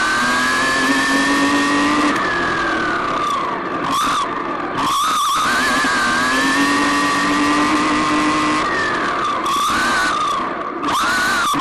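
RC car's motor whining under throttle, its pitch climbing along two straights and dropping back as it slows for the corners, with shorter bursts of throttle near the end, over tyre noise on tarmac.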